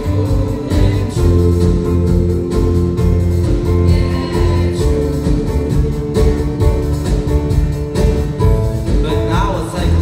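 A choir of children and teenagers singing a song in unison over instrumental accompaniment, holding long notes.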